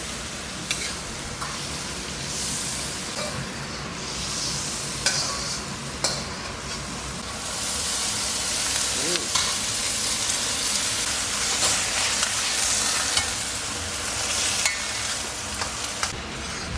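Food sizzling and frying in a hot pan while it is stirred, with occasional sharp clicks of the spatula against the pan. The sizzle grows louder about halfway through.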